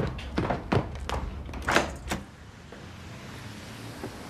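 A car door being opened and shut: several clicks and clunks in the first two seconds, over a low engine hum that fades about two seconds in.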